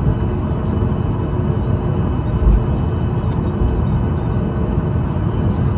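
Steady cabin noise of a Boeing 737 MAX 8 taxiing, its CFM LEAP-1B engines at low thrust over a low rumble from the wheels. There is one low thump about two and a half seconds in.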